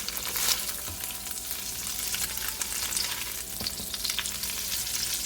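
Tofu strips sizzling and crackling in hot oil in a wok, fried to golden brown, with a few sharp clicks among the sizzle.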